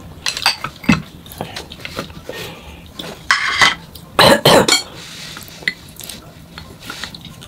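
Tableware clatter and eating: a ceramic bowl set down and chopsticks clicking against dishes in the first second, then loud mouth sounds of eating a little past three and four seconds in.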